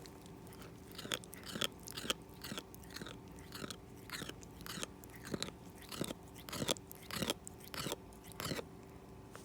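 A cat grinding its teeth: a series of short crunching clicks, about two a second, starting about a second in.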